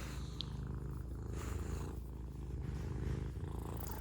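Domestic cat purring close by, a continuous low rumble that swells and eases with each breath.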